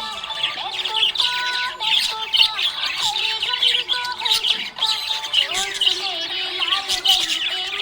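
Budgerigar chirping and warbling in a dense, unbroken chatter of quick chirps and short whistles.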